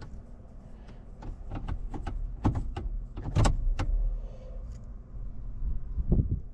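Irregular sharp clicks and knocks, about a dozen, loudest about two and a half and three and a half seconds in, over a steady low rumble.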